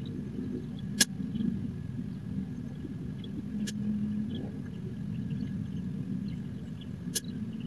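Three sharp shots from a .22-calibre gun: one about a second in, the loudest; a fainter one near the middle; and one near the end. A steady low rumble runs underneath.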